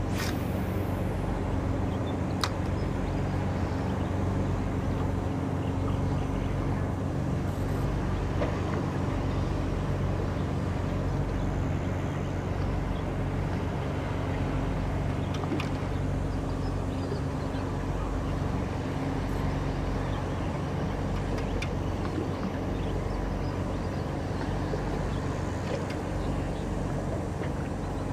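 Steady, low engine hum with a light haze of wind and water noise.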